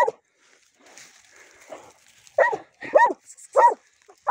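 Hunting dog barking in short, sharp barks, about five of them, with its head in an armadillo burrow: baying at the den, the sign it has the quarry holed up.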